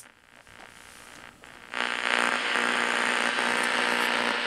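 A click as the Hallicrafters S-38D tube receiver is switched on, then a faint hiss that slowly rises as the set warms up. At about two seconds loud shortwave static with a steady hum underneath comes up through its speaker.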